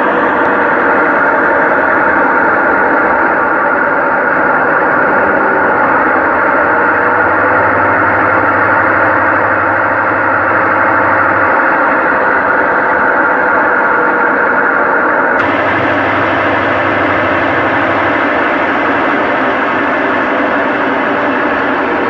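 Sanken single-tub automatic washing machine in its spin-dry cycle, the drum spinning with a loud, steady motor and drum sound. The spin is now working after the spring was replaced.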